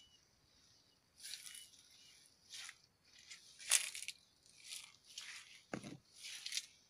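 Leaves rustling and crunching in about six short crackling bursts, the loudest about four seconds in, with one duller knock near the end.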